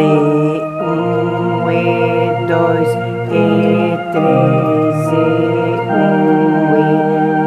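Electronic home organ playing a slow hymn in sustained chords that change about once a second over a held bass note, with vibrato on the middle voices.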